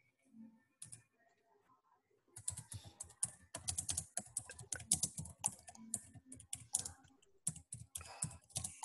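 Typing on a computer keyboard: after a couple of isolated key clicks, a quick, irregular run of keystrokes begins about two seconds in.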